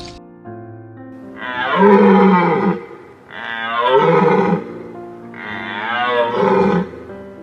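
An animal calling three times, each call loud, about a second and a half long and wavering in pitch, over steady background music.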